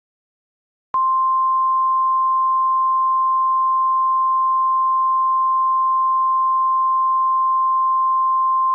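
A single steady electronic beep at one high pitch, starting abruptly about a second in after near silence and holding unchanged for about eight seconds before cutting off sharply.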